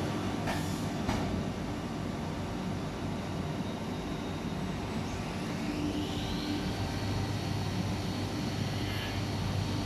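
Hurco VM10U 5-axis CNC machining centre running while milling the fillet of a compressor-impeller blade: a steady machine hum, with two short hissing bursts about half a second and one second in, and a high whine that rises about five seconds in and then holds steady.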